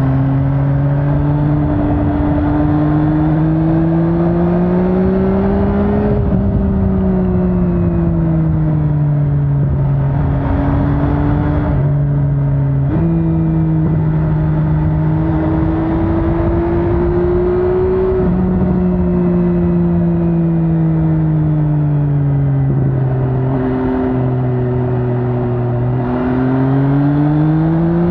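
MV Agusta Brutale 800's three-cylinder engine pulling under the rider. Its pitch climbs and falls as it accelerates and eases off, with several sudden jumps in pitch at gear changes.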